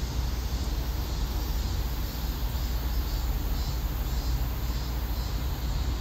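Steady low rumble with a hiss over it, an outdoor background noise with no distinct events.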